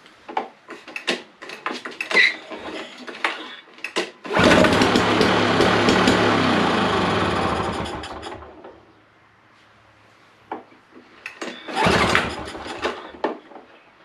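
Two-stroke lawn mower engine (a Suzuki-built 5.5 hp 2-cycle on a commercial Toro) catching after some clicking and rattling. It starts suddenly about four seconds in, runs for about four seconds on fuel squirted down the plug hole, then dies away. A second short burst of engine noise comes near the end.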